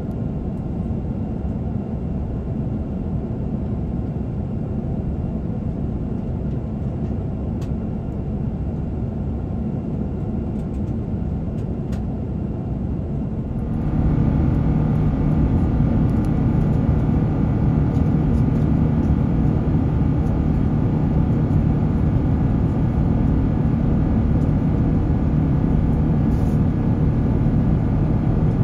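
Steady airliner cabin noise in flight aboard an Airbus A350-900: a constant engine and airflow rumble. About halfway through it becomes louder, with a steady low hum added.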